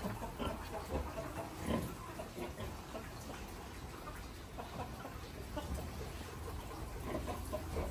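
Chickens clucking now and then, short scattered calls throughout, over a steady low background noise.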